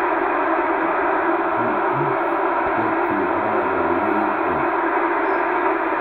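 Amateur radio shortwave transceiver's speaker giving out steady static hiss on single-sideband receive, the noise held between the low and high cut-offs of the receiver's filter. No station comes through it.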